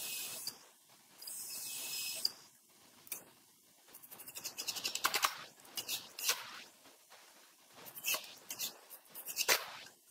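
Cordless drill driving screws into pine framing: two short runs of high motor whine in the first two seconds, then a series of clicks and knocks from the drill and the wood being handled.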